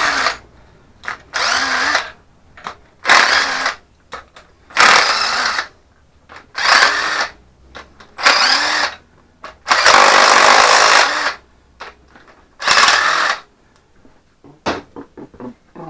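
A power tool spinning out the cylinder head studs of a Chevy S10 Blazer engine one after another, in about eight bursts of a second or so each, with the motor's pitch rising as each burst starts. The longest run comes about ten seconds in.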